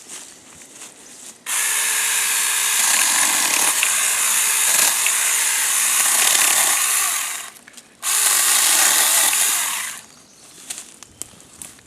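Saker 4-inch cordless mini electric chainsaw running in two bursts while cutting wood: about six seconds, a brief pause, then about two seconds more, each starting and stopping abruptly.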